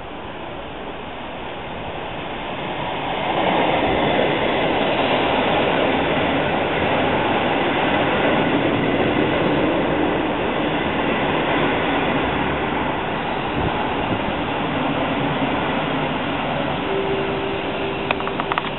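SBB train passing through a station, its rumble and rail noise building over the first few seconds, then holding loud and steady before easing slightly. A steady whine comes in near the end, with a few sharp clicks.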